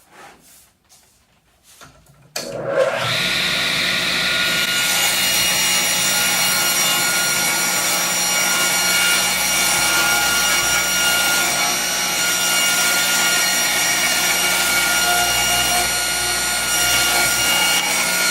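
Power saw running and cutting wood, a loud steady motor whine that starts abruptly about two seconds in, after a few faint knocks of boards being handled.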